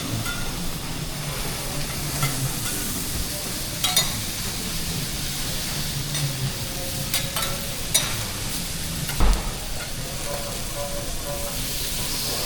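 Food sizzling steadily on a teppanyaki hot iron griddle, with a few sharp knocks, the loudest about nine seconds in.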